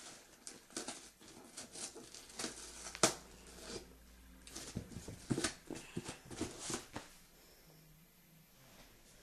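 Packaging being handled and opened: scattered rustles and crinkles with short clicks and knocks, a sharp knock about three seconds in and a busier run of knocks from about five to seven seconds.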